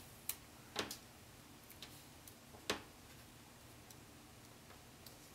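A few faint, sharp clicks and ticks from fingers peeling a planner sticker off its backing and pressing it onto a paper page, over quiet room tone; the loudest click comes about two and a half seconds in.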